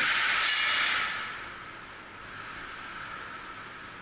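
A loud, steady hiss that fades away about a second and a half in, leaving a quieter background hiss.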